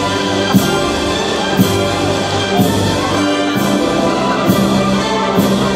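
Orchestral fireworks-show soundtrack with brass, heard loud and steady, with a sharp crack about once a second as fireworks go up.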